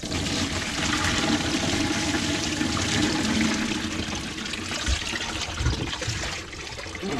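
Water rushing steadily, starting suddenly and easing off near the end.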